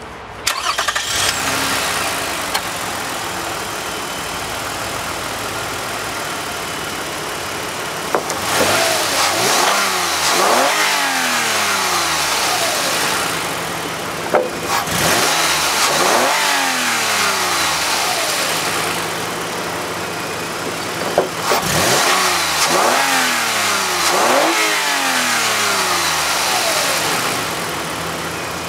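2010 Lexus RX350's 3.5-litre V6 idling in park, then free-revved in three bursts of two or three quick blips each, the pitch rising and falling back to idle between bursts. A sharp click comes just before the second and third bursts.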